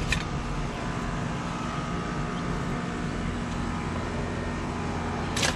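Steady low machine hum, with a short sharp scrape or strike of a shovel in dirt at the start and again near the end.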